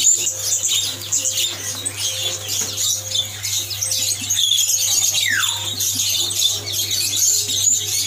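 Many caged songbirds chirping and calling over one another in a dense, unbroken chorus of short high chirps, with one clear falling whistle about five seconds in.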